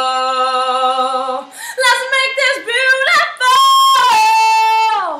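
A woman singing unaccompanied at the close of a musical-theatre song: a held note, a short phrase, then a long high final note that falls off in pitch and cuts off near the end.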